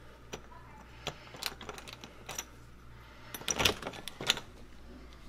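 A metal doorknob being handled and an interior door's latch clicking as the door is opened, heard as a string of separate light clicks and knocks. The sharpest clicks come about three and a half to four and a half seconds in.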